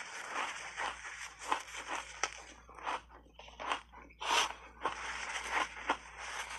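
Block ice thickly coated in matcha tea powder being bitten and chewed close to a clip-on microphone: a quick, irregular run of sharp crunches, with one louder crack about four seconds in.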